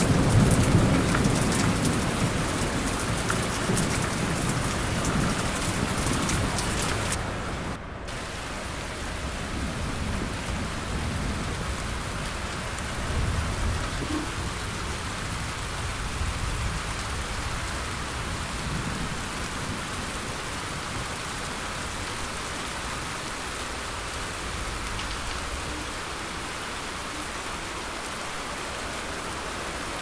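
Recorded heavy rain with rolling thunder rumbling low under it for the first several seconds. About eight seconds in, the sound cuts out for an instant and resumes as quieter, steadier rain hiss with faint distant rumbles.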